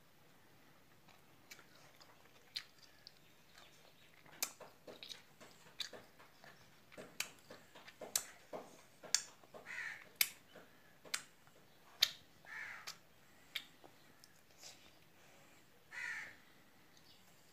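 Faint scattered sharp clicks and crackles from fingers picking at a small round piece of food held in the hands, with a few short harsh rasping calls, one about ten seconds in and others near the end.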